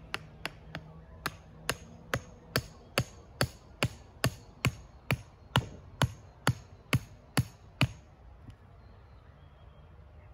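Hammer driving a wooden stake into the ground: about twenty steady, evenly spaced blows, a little over two a second, stopping about eight seconds in.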